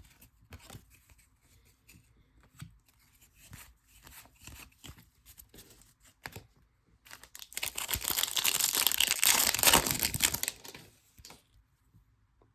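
Light rustling and handling of cards and wrappers, then a trading-card pack wrapper being torn open with loud crinkling for about three seconds.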